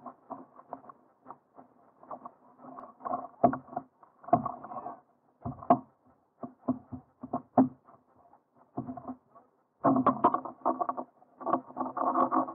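Irregular knocks, taps and rustles on a kayak on the water, bunching into denser clatters about ten seconds in and again near the end.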